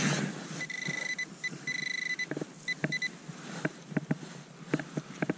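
Metal-detecting pinpointer probe sounding a high steady tone in short and longer beeps as it is pushed into loose dug soil, signalling metal close to its tip. After about two seconds the beeping stops and dry clicks and crackles of soil and straw stubble being handled follow.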